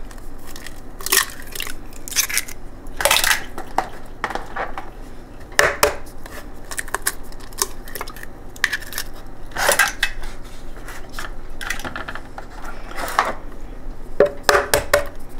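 Eggs cracked one after another into a plastic blender jar: sharp knocks of eggshell against a hard edge, a few seconds apart, with the shells being broken open between them.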